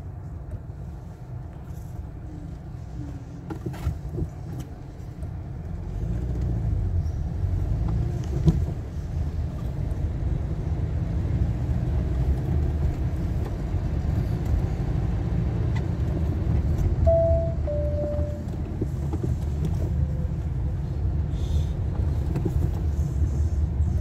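Cabin sound of a 2010 Toyota Corolla's 1.8-litre four-cylinder engine driving with a cylinder 1 misfire (code P0301): a low engine and road rumble. It grows louder about six seconds in as the car pulls away and accelerates, the engine losing power from the misfire.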